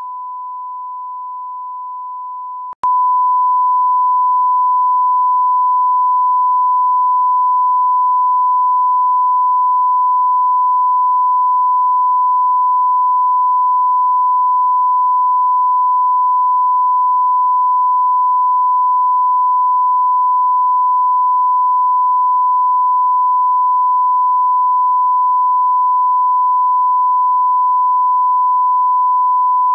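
A broadcast test tone: a steady, pure 1 kHz beep marking a TV channel off the air for a technical break. About three seconds in it cuts out for an instant with a click, then comes back louder.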